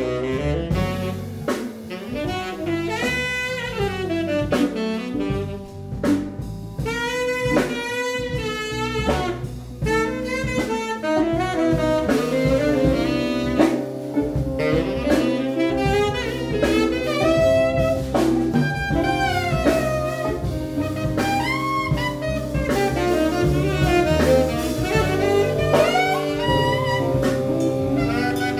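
Live jazz band: tenor saxophones playing winding melodic lines over drum kit, bass and electric guitar.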